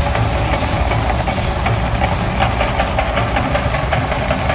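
Mirage volcano eruption show: a steady deep rumble with hissing, and many quick crackles over it, as gas-fired flames burst up across the lagoon.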